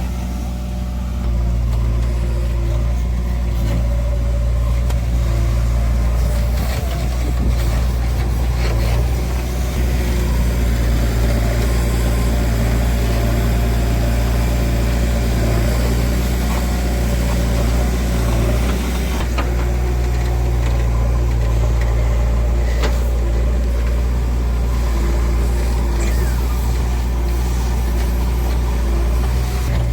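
A heavy machine's diesel engine running steadily with an even low hum, a little busier in the middle.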